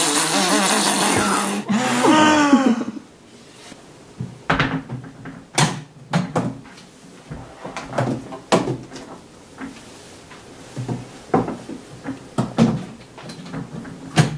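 A loud, long hissing strain from a grimacing man, ending about three seconds in with a wavering, sliding tone. Then scattered knocks and clunks as a briefcase is handled on a table.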